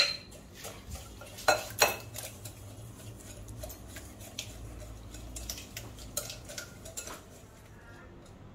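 Metal wire whisk beating wet cookie batter in a glass bowl, its wires clinking against the glass in quick, irregular taps. The sharpest clinks come at the start and twice about a second and a half in, and the taps grow fainter near the end.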